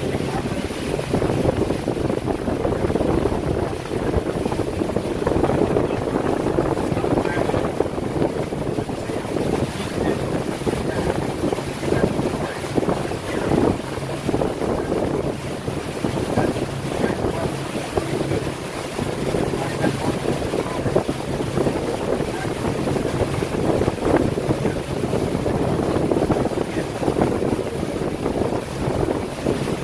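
Tour boat's motor running steadily underway, a constant low hum, with wind buffeting the microphone.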